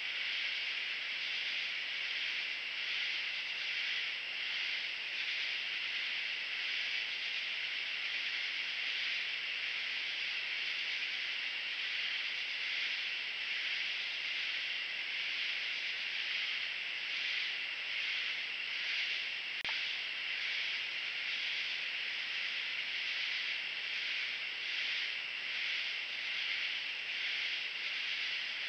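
Late-summer night chorus of katydids and crickets: a steady high-pitched drone with a slight pulsing.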